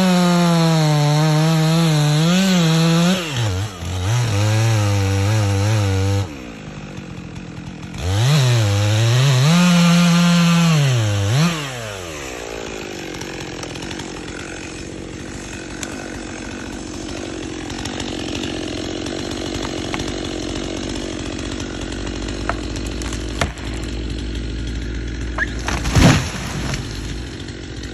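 Chainsaw at full throttle making a felling cut through a large tree trunk. Its pitch drops and wavers under load, then it revs high again before cutting off about twelve seconds in. After a stretch of low rumble, a sharp crash comes near the end as the felled tree hits the ground.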